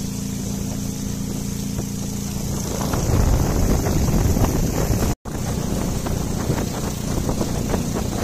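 Small boat's motor running steadily as the boat moves across the lake, with wind buffeting the microphone. From about three seconds in the sound turns louder and rougher, and it cuts out for an instant just after five seconds.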